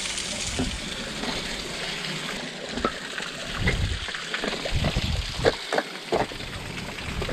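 Steady rush of running water, with a few short sharp knocks and scrapes, mostly in the second half.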